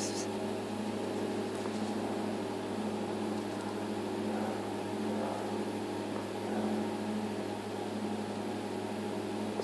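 A steady mechanical hum at one constant low pitch, with a hiss over it.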